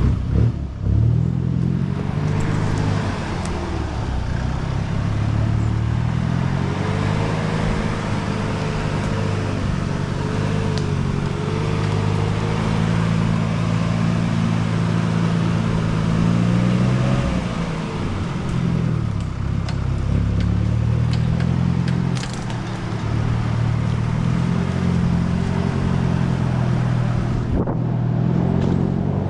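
Troller 4x4's diesel engine running while driving, its revs rising and falling several times, with a rushing noise over it.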